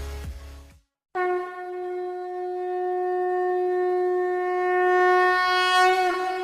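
One long horn-like blast held at a single steady pitch for about five and a half seconds, wavering slightly just before it stops. It starts after the tail of a short electronic clip cuts off in the first second.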